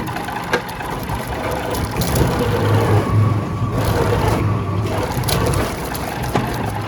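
Heavy wood-processing machinery running: a steady low hum under a rough, rushing noise, with scattered clicks and knocks.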